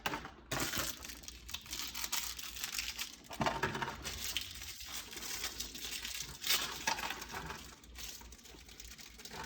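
Small clicks, clinks and rustling from door-knob lock hardware being handled, with short scattered bursts of hiss-like noise.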